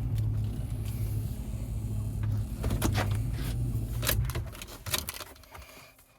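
Vehicle engine running at a steady low idle, then switched off about four seconds in. A few sharp clicks come just before and just after it stops.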